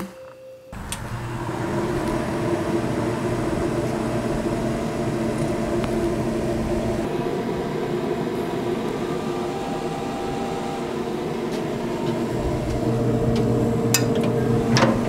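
Recteq RT-1250 pellet grill running as it fires up: a steady hum from its fan, with a couple of sharp clicks near the end.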